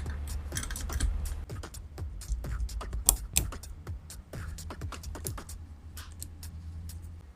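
Rapid, irregular clicks and taps of small metal parts being handled, over background music.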